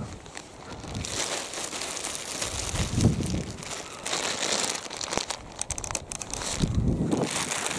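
Wind buffeting a handheld camera's microphone, a rough, uneven rushing with a few dull low thumps, mixed with rustling as the camera is handled and turned round.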